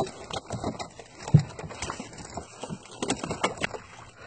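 Freshly caught fish flapping and slapping against the wooden planks of a small boat: irregular knocks and slaps, the loudest a heavy thump about a second and a half in.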